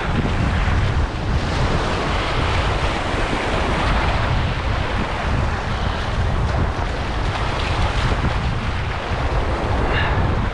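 Breaking surf washing over and around shoreline rocks, a steady rushing wash, with wind buffeting the microphone in a heavy low rumble.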